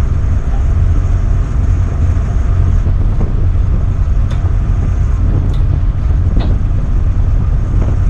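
Strong wind buffeting the microphone, a loud steady low rumble, over the tugboat's diesel engines running under way. A few faint ticks come through in the middle.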